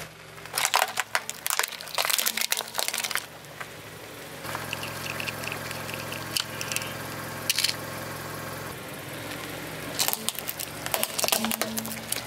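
A car tyre rolling over and crushing hard plastic toys on concrete: bursts of cracking and crunching from about half a second in to three seconds, and again near the end. Between them a car engine runs with a steady hum, with a single sharp crack in the middle.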